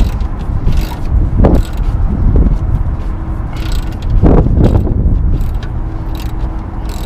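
Socket ratchet wrench clicking in several short bursts as it turns a bolt on the rear suspension of a Mazda Miata, over a constant low wind rumble on the microphone.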